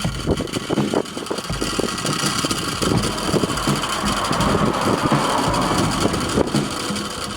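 Strong gusty wind blowing on the microphone, with the propeller of a handmade wooden Zero-fighter whirligig spinning fast in it and clattering irregularly.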